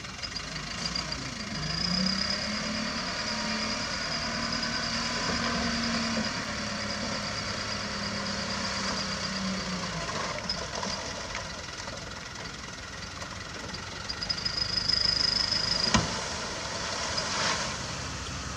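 Dump truck's diesel engine revved up and held at a higher steady note for about eight seconds while the hydraulic hoist tips the loaded bed, then dropping back to idle. A high pulsing whine comes and goes, and there is one sharp knock near the end.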